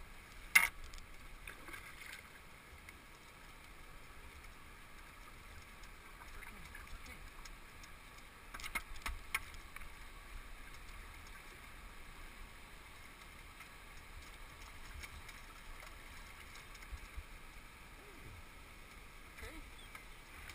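Faint steady rushing water, with a few sharp knocks and splashes from a kayak paddle working close to the hull, one about half a second in and a short cluster around nine seconds in.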